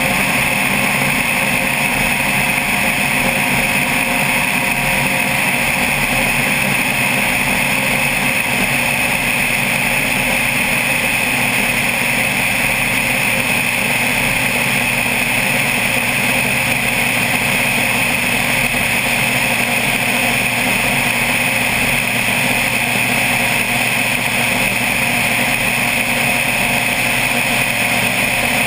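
Single-engine propeller plane in cruise flight: the engine and propeller give a loud, steady drone with rushing airflow, picked up by a microphone mounted outside on the fuselage.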